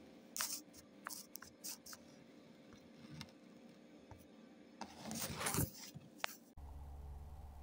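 Faint scattered clicks and rustling, with a brief louder rustle about five seconds in, then a low steady hum that starts abruptly near the end.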